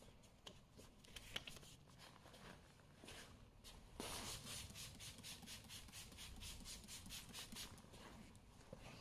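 Trigger spray bottle misting water onto a headlight lens: about four seconds in, a quick run of short sprays starts, several a second, and goes on until near the end. Before it there are only faint handling clicks.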